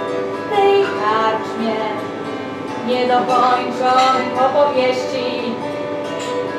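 Clàrsach (Gaelic harp) being plucked, playing a melody over chords with its notes ringing on.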